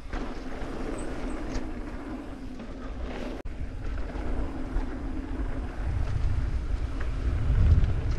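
Wind buffeting a helmet camera's microphone over the steady rumble of knobby mountain-bike tyres rolling fast on a dirt trail, with a few light clicks from the bike. The wind rumble swells and is loudest near the end as speed builds.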